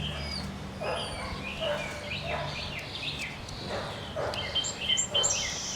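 Puppy yipping several times in short, high calls.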